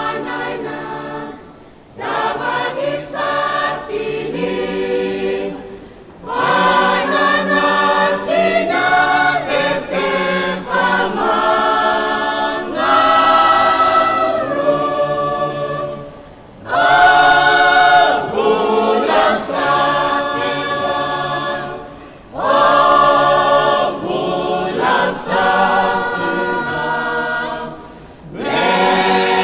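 A church choir of women and men sings a hymn a cappella in the Roviana language. The hymn moves in phrases of a few seconds, with brief breath pauses between them.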